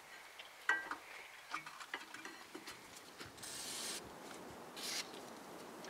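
Aerosol spray can hissing onto the Toyota FJ Cruiser's rear brake caliper and rotor in two short bursts, one about three and a half seconds in and a shorter one near the end, after a few light clicks and clinks of metal parts.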